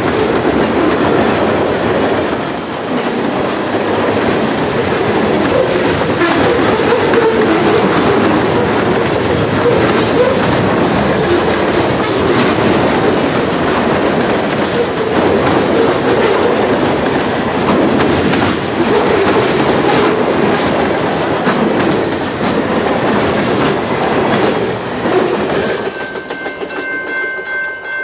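Train passing close by: a loud, steady rumble with wheels clicking over the rail joints. Near the end it drops away and a few steady tones come in.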